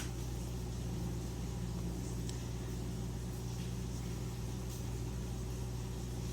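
Wolff Twice As Sharp scissor sharpener running steadily, its motor spinning a diamond grinding wheel with a low, even hum and a few faint ticks.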